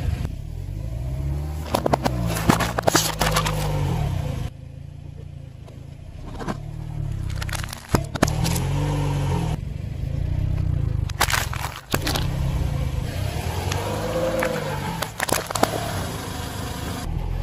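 A car tyre rolling onto plastic food packaging, yoghurt pots among it, crushing each one with crackling and crunching cracks in several separate bursts, over the steady low rumble of the car.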